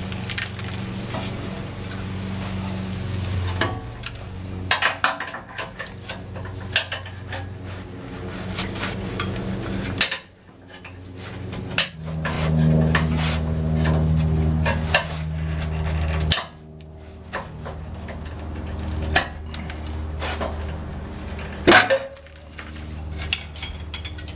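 Scattered metal clanks and knocks of tools and rusted exhaust pipe as a truck's old exhaust is worked loose and taken off, over a steady low hum. The sharpest clanks come near the end.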